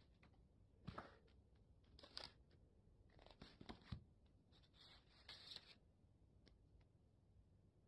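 Faint rustling and sliding of paper sheets being picked up and moved by hand, in several short bursts.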